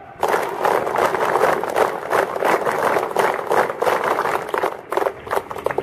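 A crowd applauding: dense, rapid clapping from many hands that starts suddenly just after the start.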